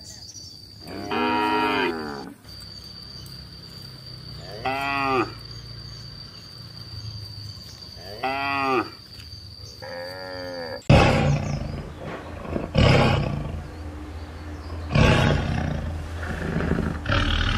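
A cow mooing four times, the calls a few seconds apart and the first the longest, then, from about eleven seconds in, a white tiger giving several loud roars and growls.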